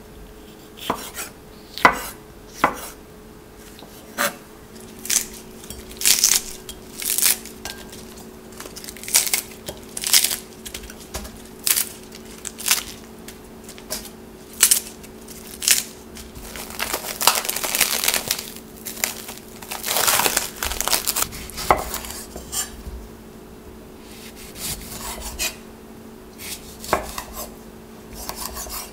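Kitchen knife chopping and slicing on a wooden cutting board: scattered sharp knocks of the blade against the board. In the middle, crisp rustling and crackling as romaine lettuce leaves are torn and handled.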